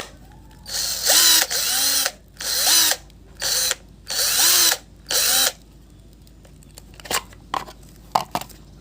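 RYU cordless drill's motor run in about six short trigger bursts, each spinning up and winding back down, followed by a few light clicks near the end.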